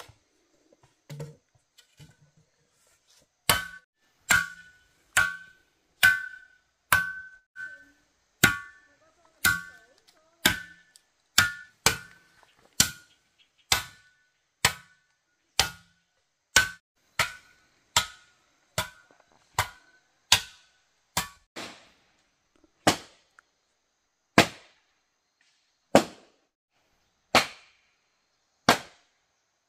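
Repeated sharp strikes of a hand tool, about one a second, each with a brief metallic ring. Past the two-thirds mark the ring drops out and the strikes slow to about one every second and a half.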